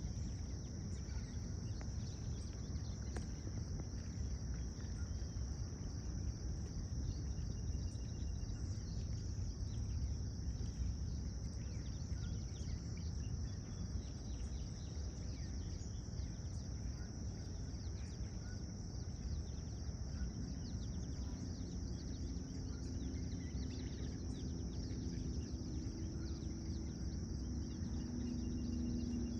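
Outdoor ambience: a steady high-pitched chorus of insects, with a constant low rumble beneath and a few faint bird chirps. A low hum joins near the end.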